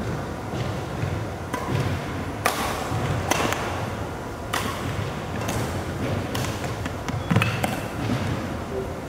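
Badminton rally: rackets striking the shuttlecock, about eight sharp hits in nine seconds, the loudest about seven seconds in, over low thumps of footfalls on the sports hall floor.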